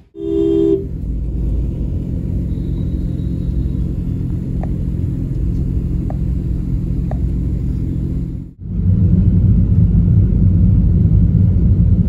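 A short vehicle horn honk, then the steady low rumble of road traffic with a few faint ticks. About 8.5 s in it gives way to a louder, steady low rumble of a vehicle driving along the road.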